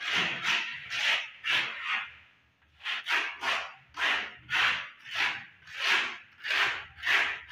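Rhythmic rasping strokes of a hand tool worked back and forth against a surface, about two a second, with a short break about two seconds in.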